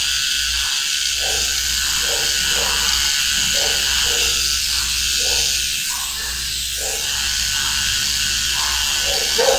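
Small electric pet-grooming trimmer running with a steady buzz as it shaves the hair off the tip of a Yorkshire terrier's ear.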